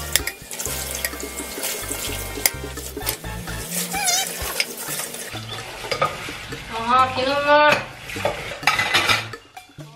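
Dishwashing at a stainless-steel sink: the tap running onto glass bowls, with glass and crockery clinking. About seven seconds in a short, rising pitched cry stands out as the loudest sound.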